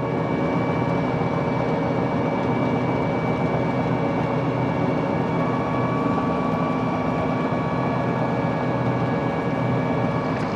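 Fiat 1355C steel-track crawler's 8.1-litre Fiat-Iveco diesel engine running steadily under load while pulling a six-furrow plough, with a faint steady high whine over the engine note.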